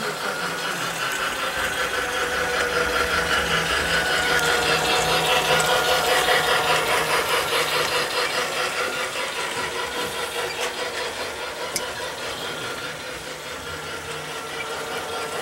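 Small electric motor of a toy train running steadily with a fast rattling pulse of wheels on the track, growing louder toward the middle and then fading. A single sharp click comes about two-thirds of the way in.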